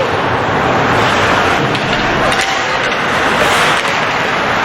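Steady roar of a hockey crowd, many voices blending into one continuous din.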